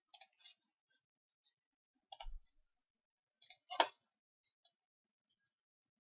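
A computer mouse clicking, a handful of scattered single clicks with gaps between them. The loudest click comes a little before four seconds in.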